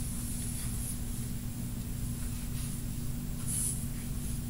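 Quiet room tone: a steady low hum under faint hiss, with a few soft handling noises.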